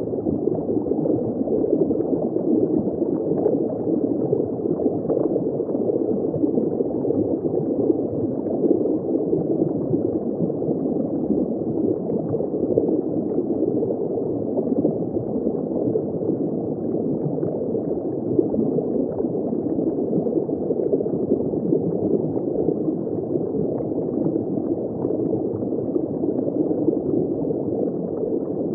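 Steady, muffled underwater ambience of bubbling, gurgling water, unchanging throughout.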